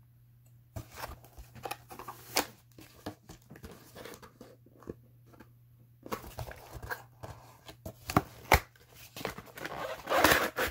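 Cardboard toy box being handled and pulled open: irregular taps, scrapes and rustles of cardboard and packaging, with a louder rustling rush near the end.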